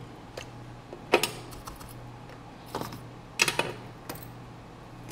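Hands handling small tools and wires on a silicone repair mat, making irregular light clicks and taps. The loudest come a little over a second in and about three and a half seconds in. A steady low hum runs underneath.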